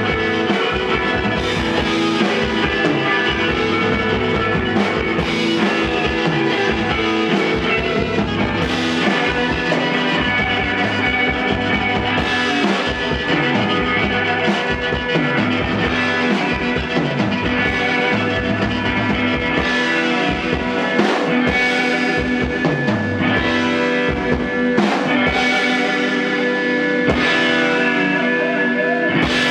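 Live rock band playing an instrumental passage: electric guitar over a steady drum-kit beat, with no singing.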